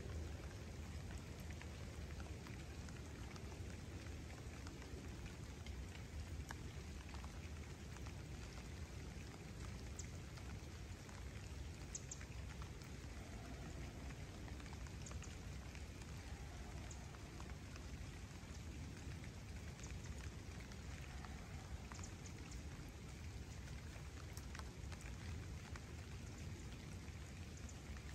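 Steady light rain falling on a lake surface and the surrounding foliage, an even patter with a few louder single drops ticking now and then.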